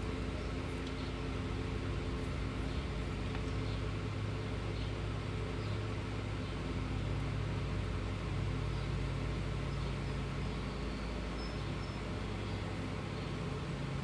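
A steady mechanical hum from a running motor, holding an even pitch and level throughout.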